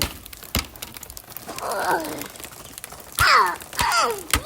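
Wordless human vocal sounds, groan- and sigh-like, sliding down in pitch, twice, with a few sharp clicks near the start.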